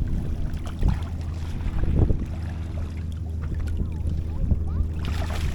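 A boat engine running at a low, steady idle, with wind buffeting the microphone and a few knocks from handling.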